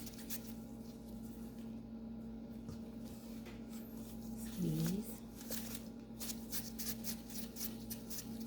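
Gloved hands squeezing and rolling crumbly pistachio shortbread dough into balls: a quick, irregular run of soft rustling and crinkling, over a steady low hum.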